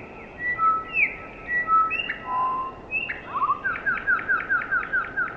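Song sparrow singing: a string of clear whistled notes and slurred glides, then a fast trill of repeated notes at about five a second near the end.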